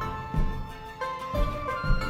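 Background music with a steady beat and a plucked melody.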